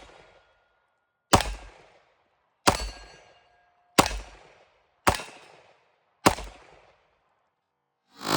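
Five rifle shots fired one at a time at a steady pace, about one every second and a quarter, each followed by a fading echo.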